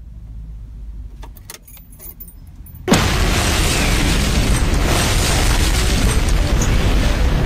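A few faint clicks, then about three seconds in a sudden loud blast that carries on as a steady roar: an explosion sound effect.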